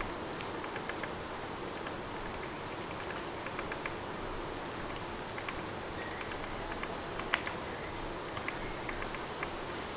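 Steady rain, an even hiss with scattered drips and taps, and short high chirps repeating over it.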